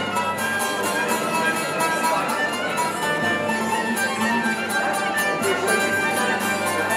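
Background music led by violin over bowed strings, with a steady rhythmic pulse.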